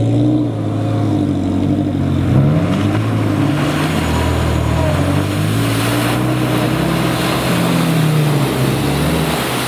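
Subaru Impreza's flat-four engine revving under load as the car ploughs through mud and deep puddles, its pitch rising and falling with the throttle, over the splash and spray of muddy water against the car.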